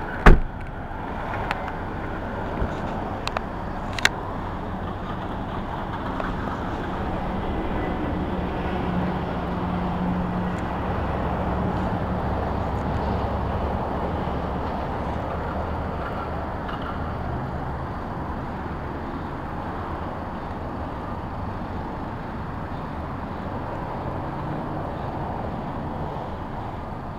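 Steady road traffic noise from passing cars, with a low engine hum swelling louder in the middle as a vehicle goes by. A sharp knock just after the start and a few light clicks in the first few seconds.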